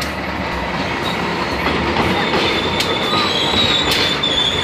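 Passenger train passing close by: the CC 201 diesel-electric locomotive goes by, then the coaches roll past with the wheels clicking over the rail joints. A high wheel squeal sets in about halfway through.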